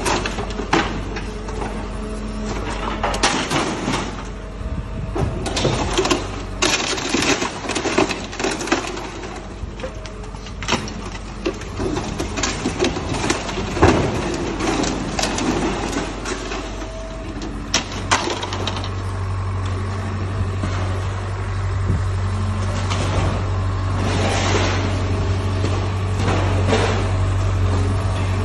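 A demolition excavator's grab tearing apart the upper deck of a Plaxton President double-decker bus: irregular crunching and crashing of metal panels and glass, with one loud crash about halfway through, over the low hum of the machine's diesel engine. About two-thirds of the way in the engine hum becomes louder and steadier.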